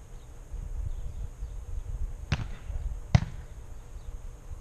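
Two sharp slaps of a volleyball being struck by players' hands or arms, a little under a second apart, the second louder.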